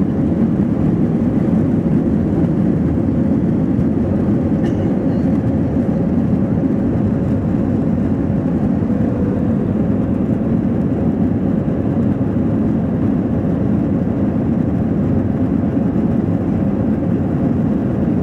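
Steady engine and rushing-air noise heard inside an airliner cabin during the takeoff run and climb: a loud, low, even noise with a faint steady hum.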